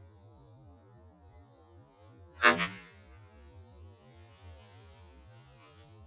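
A faint, steady low hum with one sharp, loud knock about two and a half seconds in that rings briefly.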